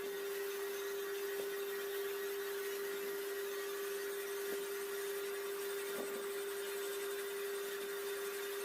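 Metal lathe running with a steady, even whine, with a few faint ticks.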